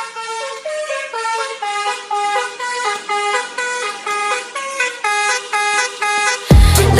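A musical car horn playing a quick tune of short notes stepping up and down. Near the end a dance beat with heavy bass drum hits cuts in.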